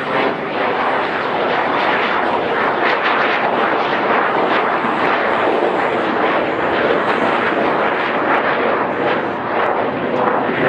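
Gloster Meteor T.7 jet in flight overhead, its two Rolls-Royce Derwent turbojets making a loud, steady rushing jet noise with a slight flutter.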